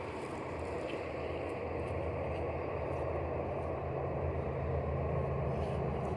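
An engine running steadily with a low hum, getting slowly louder.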